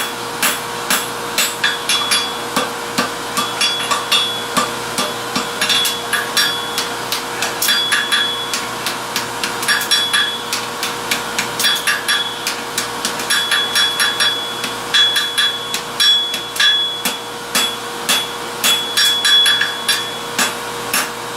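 Blacksmith's hand hammer forging steel on an anvil: a steady run of sharp, ringing blows, about two to three a second, over a faint steady hum.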